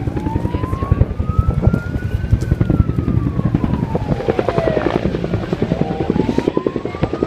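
Helicopter rotor beating loudly with a fast, even pulse of blade slaps. Over it a siren wails slowly: it rises, falls, then rises again near the end.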